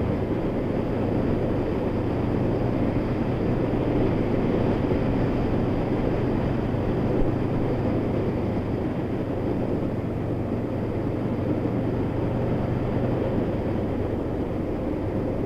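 Honda VFR800's V4 engine running at a steady pace on the move, under a steady rush of wind and road noise.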